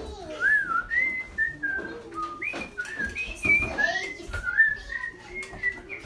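Someone whistling a wandering tune: a string of short high notes that swoop up and down one after another, with a few light knocks from people moving about.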